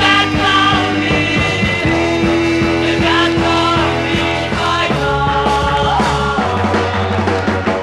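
1960s Japanese group-sounds rock recording: a band playing with a steady drumbeat, bass and long held notes over it.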